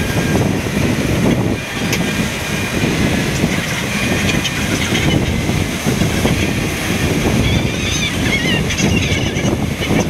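Wind on the microphone and breaking surf make a loud, steady rumble, with gulls calling over it briefly near the end.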